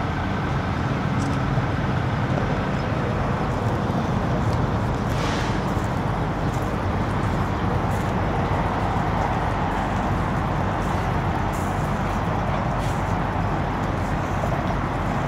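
Steady rumble of road traffic and vehicles, with a brief hiss about five seconds in.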